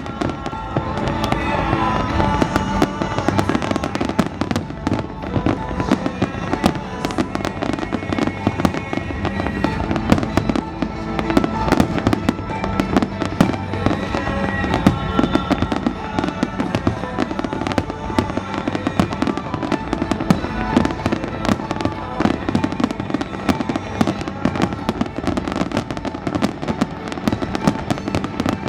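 Fireworks display: rapid, near-continuous bangs and crackles of firework shells, with music playing underneath.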